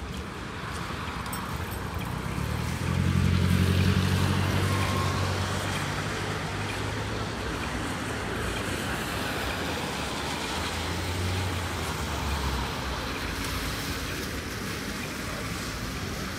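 Street traffic on a wet city street in the rain. A motor vehicle's low engine hum comes up about three seconds in, is loudest soon after and fades out over the next several seconds, over a steady hiss of rain and wet road.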